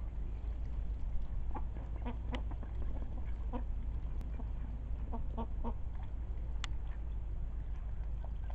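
Short, soft clucking calls from domestic fowl, one or two at a time in scattered groups, over a steady low rumble.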